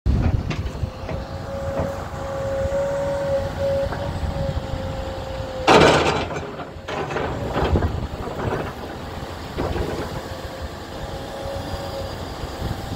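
2018 Komatsu PC210LC-11 tracked excavator's diesel engine running under hydraulic load as the boom, arm and bucket are worked. A steady whine sits over the engine from about one to five and a half seconds in, and a loud, short rush of noise comes just before six seconds in.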